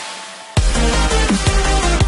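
Electronic dance music: a hissing build-up fades out, then about half a second in a heavy bass drop comes in with deep bass and a steady drum beat.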